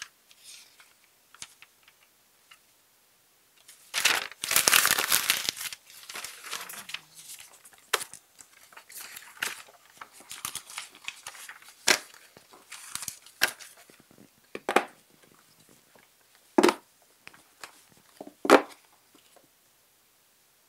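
Paper sheets and glossy magazines being shuffled and handled on a desk: irregular rustling and crinkling, loudest in a long rustle about four seconds in, with scattered sharp taps and two firmer knocks near the end as they are set down.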